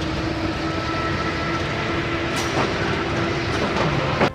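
A crane's machinery at work: a steady mechanical rattle and clatter with a low hum under it, and one brief click about two and a half seconds in.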